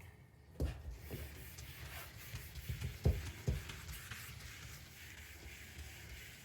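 Faint rubbing of wet-sanding a plastic headlight lens with a fine 3000-grit pad, with a few soft knocks.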